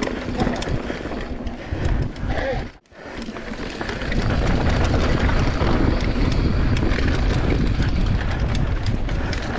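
Wind buffeting the microphone over the rumble of a Giant Trance 27.5 mountain bike's tyres on a dirt trail, with rapid clicks and rattles from the bike. The noise cuts out briefly about three seconds in, then comes back louder.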